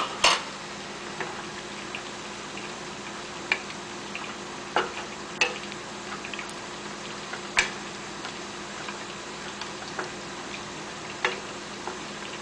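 Wooden spoon stirring chicken and sauce in a stainless steel skillet, knocking sharply against the pan at irregular intervals over a steady sizzling simmer.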